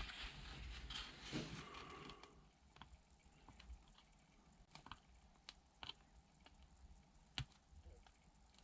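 Very quiet handling of a painted Lexan RC car body: sparse faint clicks and crackles of fingers picking at and peeling off its protective plastic film, with one sharper click about seven seconds in.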